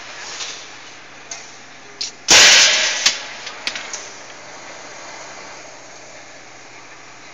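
Automatic hydraulic press line: about two seconds in, a short, loud hiss of a compressed-air blast at the die lasts about half a second and fades. A few sharp clicks follow from the transfer mechanism, over a steady machine hum.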